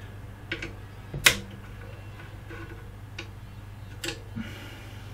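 Hex key clicking against the bolts and aluminium extrusion of a Creality CR-10S base frame as the frame bolts are loosened: a handful of sharp clicks, the loudest about a second in.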